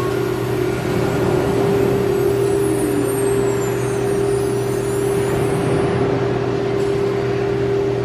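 CNC wood router's electric spindle running at a steady high pitch over a broad machine noise. Faint high whines rise and fall in the middle as the head travels across the panel.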